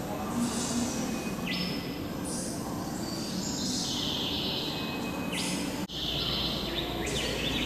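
Gallery room ambience: a steady hiss and background noise, broken by a brief dropout about six seconds in, after which a low hum comes in.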